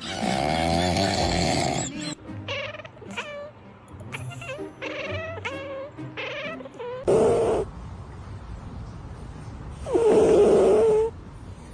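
Sleeping cats snoring: a run of short high-pitched squeaks on the breaths, then two loud rasping snores, about seven and ten seconds in.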